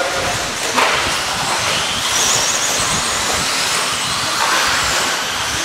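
Electric RC stadium trucks racing: a steady mix of brushless-motor whine and tyre noise, with a high whine coming in about two seconds in.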